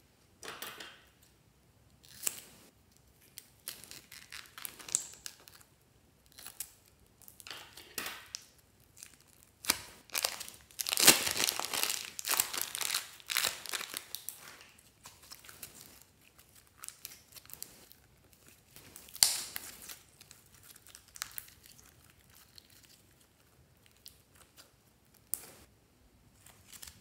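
Plastic piping bags filled with slime crinkling and rustling as they are handled and squeezed, with slime squishing out of them. The sound comes in irregular bursts, densest and loudest about halfway through.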